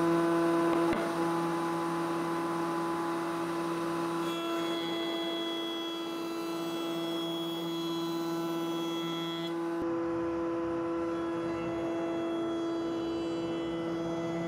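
Triton TRA-001 router running steadily at full speed in a router table, a constant motor whine with several steady tones. From about four seconds in to about nine and a half seconds, the quarter-round roundover bit adds the sound of cutting along the edge of a board fed right to left against the bit's rotation, a normal conventional cut rather than a climb cut.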